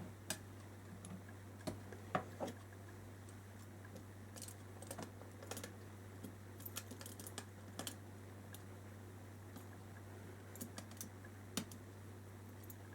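Faint, irregular light clicks and taps of small model-truck parts and packaging being handled and set down, over a steady low hum.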